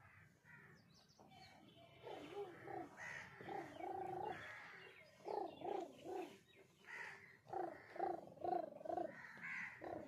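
Crows cawing repeatedly, in quick runs of three or four caws, starting about two seconds in.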